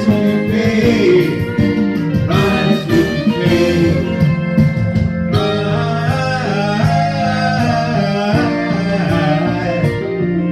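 Live song: a man singing into a microphone over guitar accompaniment, with sustained low notes underneath.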